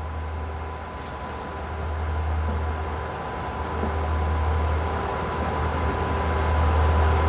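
Steady machine-room drone of a solid-state transmitter's cooling fans and air handling: a low hum with a faint steady high tone over an even rush of air, slowly growing louder.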